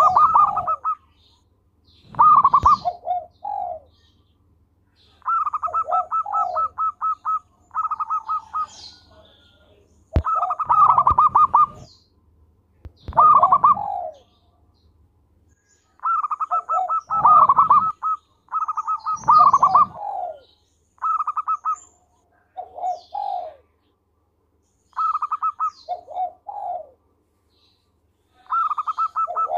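Zebra dove cooing its song over and over: each phrase a quick rattling run of short notes followed by a few lower, falling coos, repeated every couple of seconds with brief pauses between.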